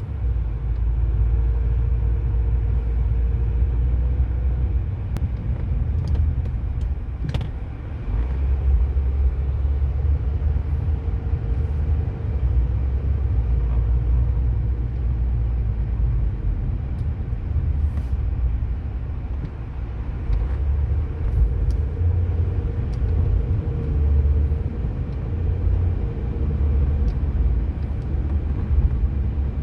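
Peugeot 407 coupé with a steady low rumble and scattered, irregularly spaced knocks, the strongest about seven seconds in: the knocking sounds from the car that are being recorded as a fault.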